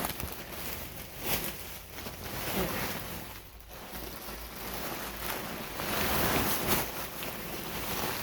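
Packaging rustling and crinkling, with irregular scrapes and surges, as bags of yarn are pulled out of a shipping parcel.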